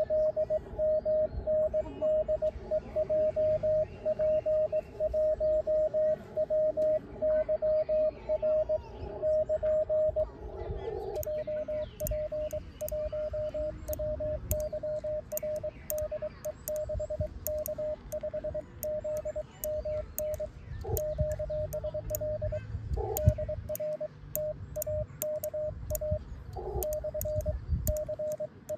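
Morse code on a transceiver: for about the first eleven seconds a loud received CW signal, a keyed single tone, the Japanese station sending "HW? 6K5ZMN DE JP1WYR KN". Then the operator answers on a paddle key: quieter sidetone dots and dashes at the same pitch with the paddle's sharp clicks, sending "JP1WYR DE 6K5ZMN" and "DR TAKA/CHIBA SAN".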